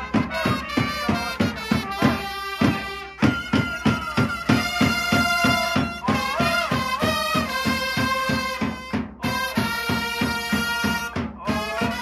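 Cheering-squad brass band playing a professional baseball cheer song: several trumpets play the melody together over a steady beat on a large drum, with a leader chanting the lyrics through a megaphone. The band breaks off for a moment about three seconds in.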